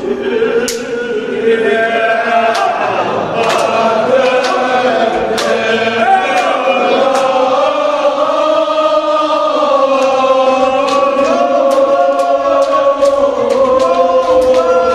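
Group of men chanting a Kashmiri marsiya, a Shia mourning elegy, their voices held and rising and falling together. Scattered sharp slaps cut through the chanting.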